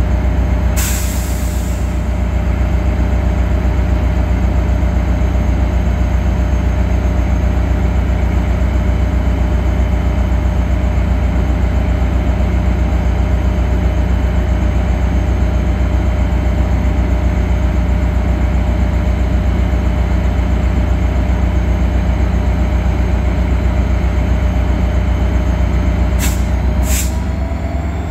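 Caltrain diesel locomotive idling alongside, a loud steady low drone with a steady hum above it. A short hiss of air sounds about a second in, two brief hisses follow near the end, and in the last second the engine's pitch starts to climb.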